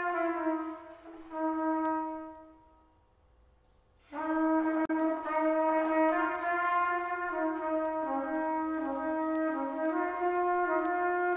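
Solo trumpet improvising in long held notes. A note fades out about two seconds in, there is a short pause, and from about four seconds in the trumpet plays a slow line of sustained notes moving up and down in pitch.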